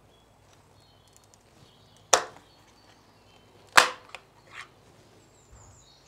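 Plastic clip of a bicycle rear light snapping as the light is unclipped from under the saddle: two sharp clicks a little under two seconds apart, then two fainter ones.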